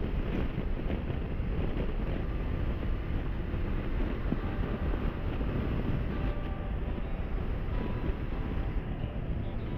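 Steady wind rush over the microphone of a motorcycle cruising at highway speed, with its engine and tyres running underneath.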